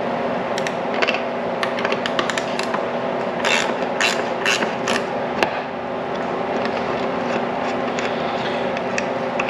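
Irregular metallic clicks from a hand tool working the ditch light's mounting bolt loose, over a steady hum.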